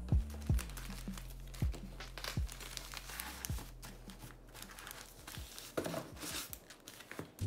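Paper sticker packets rustling and crinkling as they are handled and gathered into a stack, with several light knocks as the stacks are tapped down on the desk in the first few seconds.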